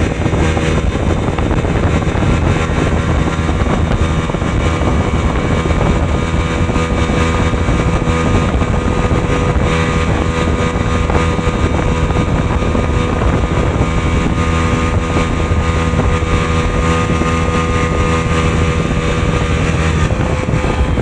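Jet ski engine running steadily at speed over water, a constant loud drone with a steady pitch.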